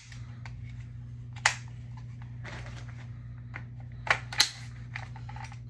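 Metal clicks and clacks of a short-barrelled Draco AK-pattern rifle being handled: one sharp click about a second and a half in, then two louder clacks about four seconds in as a curved magazine is fitted to it. A steady low hum runs underneath.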